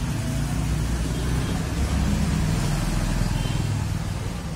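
Steady low rumble of a motor vehicle engine running close by, with no change in speed.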